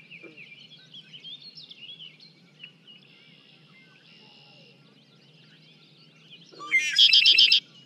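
Red-winged blackbird singing once near the end: a few short notes, then a loud trill about a second long, picked up through a full-size parabolic microphone. Faint bird chirps come before it.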